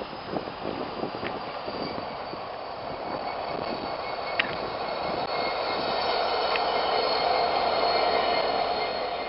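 BNSF diesel-electric freight locomotive passing on the rails, its rumble growing steadily louder, with faint high-pitched wheel squeal above it.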